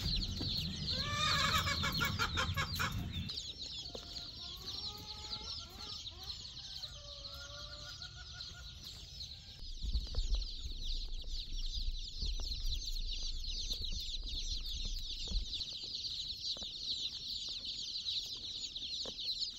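Dense chorus of high-pitched peeping from a box full of day-old baby chicks, going on throughout. A few lower calls come in between about 4 and 9 seconds in, and a low rumble of handling or movement runs from about 10 to 15 seconds in.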